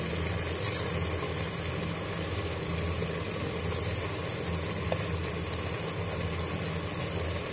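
Steady low hum like a running motor, with a faint even hiss on top.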